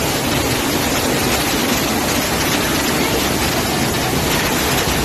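Steady, loud rushing noise of heavy rain and flowing floodwater, with no change or distinct events.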